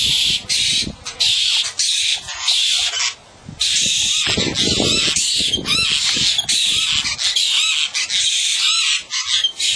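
A flock of birds squawking close by in long runs of raspy calls, one after another, with a brief pause about three seconds in.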